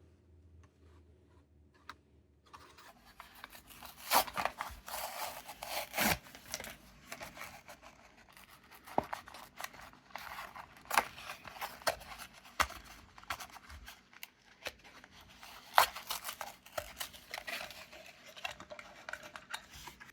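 A die-cast toy car's blister-card packaging being opened: crackling plastic and card with many sharp clicks, starting about three seconds in and stopping abruptly at the end.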